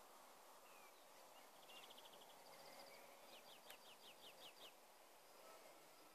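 Near silence with faint bird calls over a quiet outdoor hiss: a short rapid trill about two seconds in, then a run of about eight quick descending chirps.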